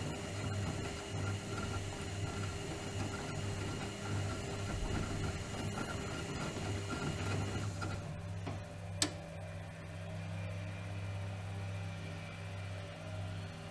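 Bauknecht WAK 5750 G washing machine running, a steady low hum under a churning noise; about eight seconds in the churning drops away, a single sharp click follows about a second later, and the hum carries on.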